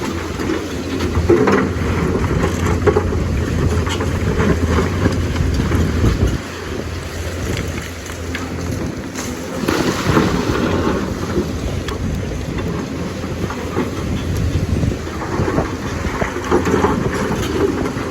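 Lonking excavator's diesel engine running under load, with rough irregular clattering and rumbling of the machine working; it eases off for a few seconds in the middle and then picks up again.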